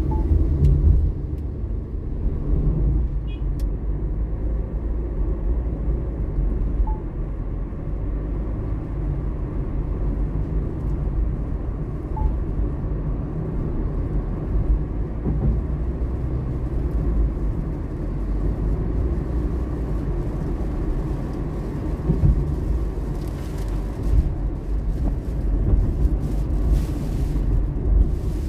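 Car driving along a city road: a steady low rumble of engine and tyre noise.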